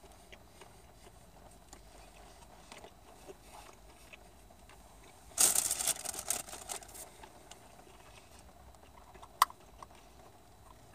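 Quiet eating of chicken nuggets with faint chewing sounds. About five seconds in there is a loud crackling burst lasting over a second, and a single sharp click comes near the end.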